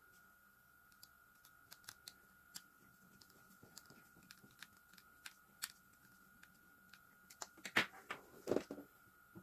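Scattered small clicks and taps of hair-clipper parts being handled during disassembly, with a louder cluster of clatter near the end.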